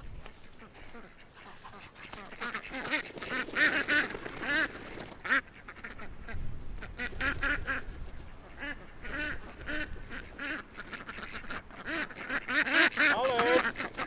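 A flock of domestic ducks quacking loudly in alarm, many short overlapping quacks coming in bursts from about two seconds in, as they are chased by a puppy.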